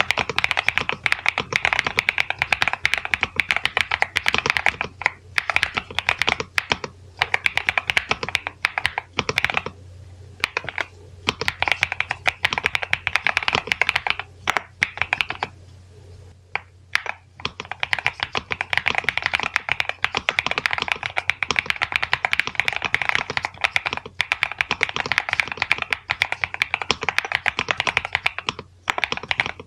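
Nuphy Halo96 V2 mechanical keyboard with Mint switches being typed on fast: a dense run of keystroke clacks, with a few short pauses about a third and halfway through and near the end.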